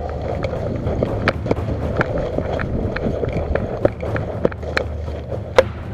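Running footsteps on a forest path of dirt and dry leaves, an irregular run of thuds and crunches with gear rattling along with them.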